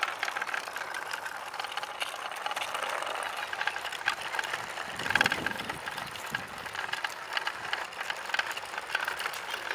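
Small electric motor and gearbox of a remote-controlled wooden model dump truck whirring as it drives over asphalt, with a dense clicking rattle from its wooden body and wheels. The sound swells louder and lower about five seconds in.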